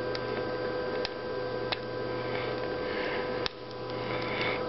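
A few small, sharp clicks of a BlackBerry Bold 9000's plastic housing and chassis being pressed and handled as it is fitted back together, over a steady electrical hum.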